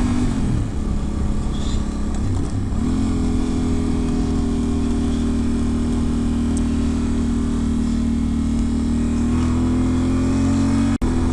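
Yamaha Ténéré 700's parallel-twin engine running under way: the engine note drops in the first second as the rider eases off, climbs again a few seconds in and then holds steady, rising slightly near the end. The sound cuts out for an instant just before the end.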